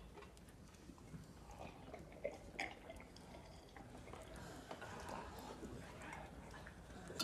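Faint, scattered sips and swallows and small knocks of cups as a hall full of men drink together after a toast, with a couple of slightly sharper clicks a little past two seconds in.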